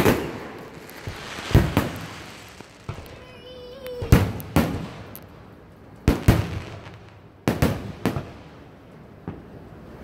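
Aerial firework shells bursting: a string of sharp booms every second or two, some in close pairs, each trailing off.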